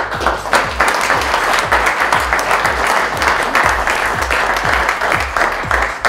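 Audience applauding, over background music with a steady beat.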